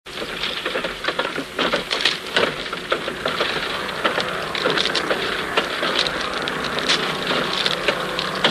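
Dense, irregular crackling and clicking over a steady hiss, with no melody or beat, starting abruptly at the very beginning.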